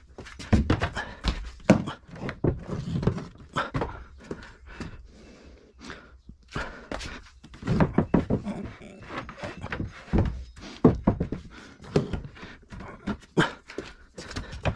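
Irregular knocks, thuds and scrapes of hands-on fitting work in a cramped space. They come in two busy stretches with a short lull about five to six seconds in.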